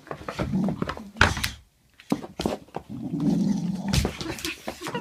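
Boxer dog growling in low rumbling stretches while it paws at a metal dumbbell, with a few sharp knocks of the dumbbell against the floor.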